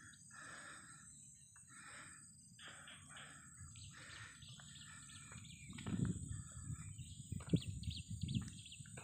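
Birds calling and chirping, with a steady high insect drone behind them. In the second half the chirps come in quick runs, and low rumbles of handling or wind on the microphone are mixed in.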